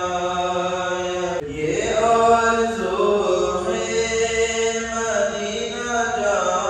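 A voice chanting in long, drawn-out melodic phrases in the style of Islamic recitation, with a short break about one and a half seconds in.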